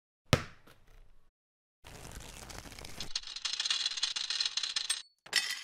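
Edited sound effects: one sharp knock with a short decay, then about three seconds of rattling noise that changes character abruptly partway through and stops dead, followed by a short loud burst near the end.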